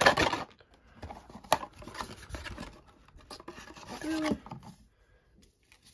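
A cardboard Pokémon booster bundle box being opened by hand and its booster packs slid out, with cardboard rustling, rubbing and scraping and a sharp click about one and a half seconds in.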